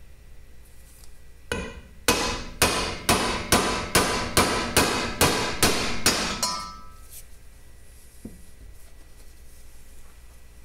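A mallet striking a metal seal driver about a dozen times, roughly two blows a second, each with a short metallic ring, driving an oil seal into the bore of a motorcycle primary case cover. The blows stop about six and a half seconds in.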